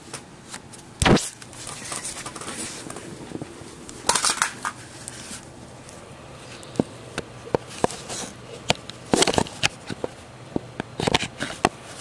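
Scattered handling noises: a loud knock about a second in, a short rustle around four seconds, then a run of sharp clicks and small knocks.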